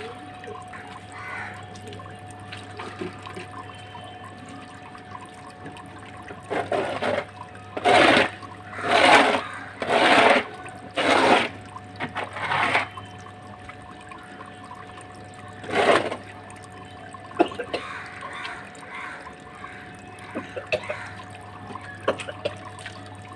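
A run of about seven short, rough scraping strokes of a hand scraper across the wet, dirty floor of a pigeon loft, clustered in the middle, over a faint steady hum.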